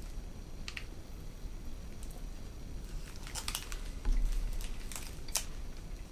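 Chewing a mouthful of a 100 Grand bar (chocolate, caramel and crisped rice), with scattered short crunchy clicks. A dull low thump about four seconds in is the loudest sound.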